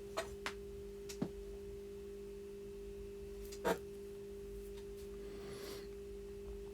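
A few light clicks and taps of small plastic valve parts being handled, the loudest just before four seconds in, over a steady electrical hum.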